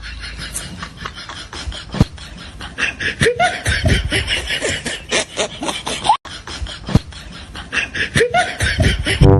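People laughing and snickering, mixed with short knocks and brief rising squeaks, with an abrupt cut about six seconds in.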